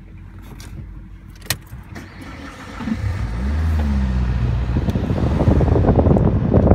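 A car engine pulling away and speeding up, a low rumble whose pitch shifts and that grows louder over the last few seconds.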